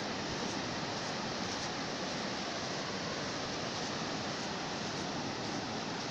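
Sea surf, a steady unbroken wash of waves with no single break standing out.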